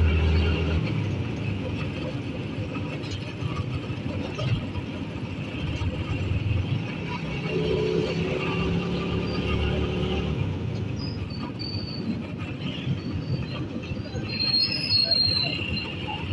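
Engine and road noise from a moving vehicle in city traffic, a low rumble that eases off partway through, with a brief high squeal near the end.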